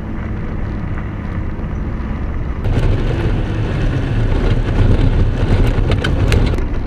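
Vehicle driving on an unpaved dirt road, a steady engine and tyre rumble. About two and a half seconds in it grows louder and rougher, with gravel crackling and clicking under the tyres.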